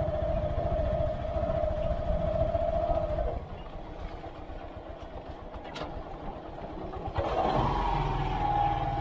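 Motorcycle engine running. It eases off and quietens about three seconds in, then picks up again, louder and higher, about seven seconds in.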